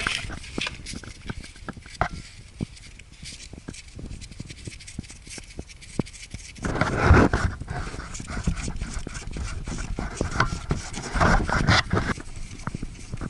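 Hand tools and parts being handled during a motorcycle oil change: scattered clicks and light knocks, with two louder scraping bursts about seven and eleven seconds in. The engine is not running.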